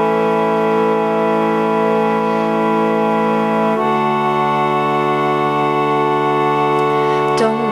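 Instrumental intro of a song: held keyboard chords, changing to a new chord about four seconds in. A singing voice comes in right at the end.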